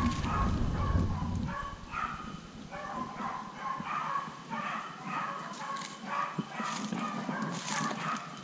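Hunting dogs barking and yipping in quick repeated calls, about two a second. Low wind or handling rumble on the microphone in the first second and a half.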